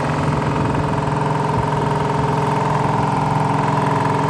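Piston air compressor pump running steadily with a fast, even chugging hum. Its cylinder head gasket is leaking badly, which is why it is slow to build pressure.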